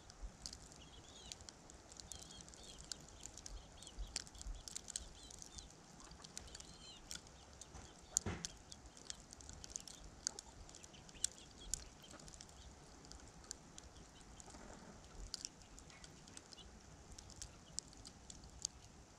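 Faint storm ambience: falling snow and ice ticking irregularly against the camera, over a low wind rumble. A few faint bird chirps come in the first three seconds, and there is one louder knock about eight seconds in.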